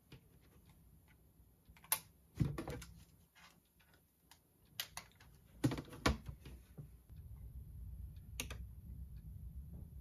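Typing on a slim computer keyboard: irregular soft key clicks with a handful of louder taps. A low steady rumble comes in about seven seconds in.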